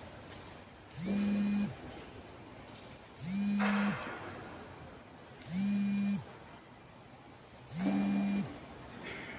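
A small electric motor whirring in short spells of under a second, spinning up and winding down four times at an even pace of about one every two seconds.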